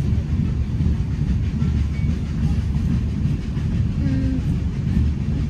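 A passenger train carriage running along the track: a steady low rumble of wheels on rails, heard from on board.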